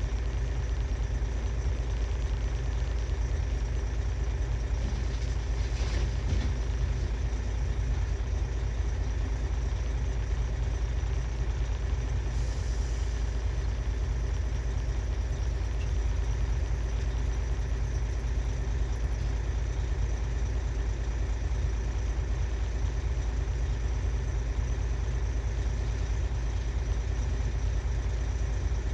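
Diesel engine of a Volvo A25G articulated hauler idling steadily, heard from inside the cab as a constant low hum.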